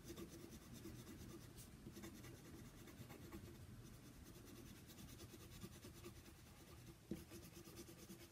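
Faint scratching of a colored pencil shading on paper, with one soft knock near the end.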